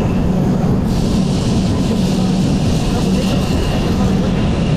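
1906 double-decker tram No. 47 running along its track, heard from its roof: a steady rumble with a low hum and a faint higher whine that comes and goes.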